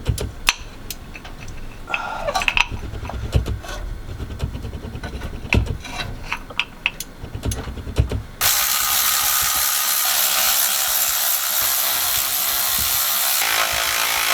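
A hand ratchet clicks and metal tools knock against engine parts during teardown. About eight seconds in, a loud, steady hiss starts and holds.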